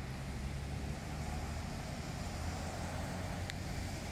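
Steady low rumble of car traffic on wet roads, mixed with wind buffeting the microphone.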